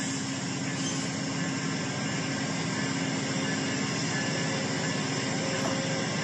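LEGO train rolling past close by on plastic track: a steady whirring rattle of its motor and wheels.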